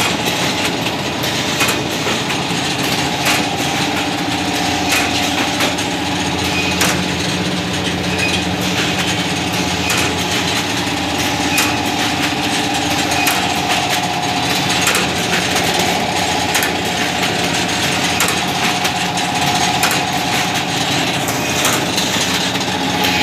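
Woven rice bag five-colour printing machine running: a steady mechanical hum and clatter, with a sharper knock repeating a little under every two seconds.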